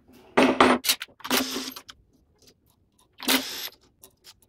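Makita 18V cordless impact driver with a socket spinning nuts off the bolts of a steel press jig, in three short bursts of about half a second each, with light clinks of loose nuts and metal.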